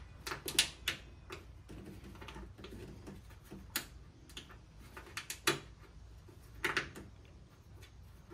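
Plastic tailgate trim clips being twisted about an eighth of a turn by hand and worked out of their holes in the steel tailgate frame: a scatter of short, sharp, irregular clicks.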